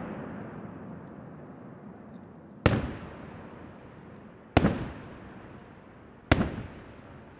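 Aerial firework shells bursting: three sharp bangs, roughly two seconds apart, each followed by a long echoing rumble that fades away. Faint scattered crackles run between them.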